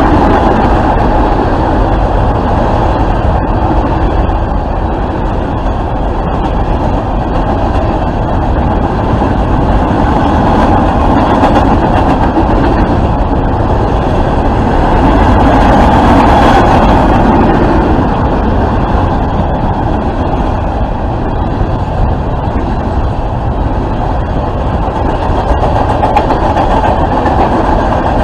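Freight train of flatcars loaded with containers rolling past close by: a steady, loud rumble of steel wheels on the rails, swelling a little about halfway through.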